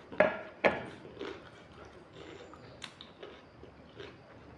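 Two sharp knocks of a ceramic plate being set down on a table, each with a brief ring, then faint chewing and small clicks against the plate.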